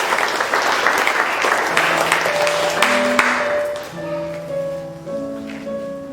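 Audience applauding, the clapping dying away about three seconds in, as a few steady held instrument notes begin to sound.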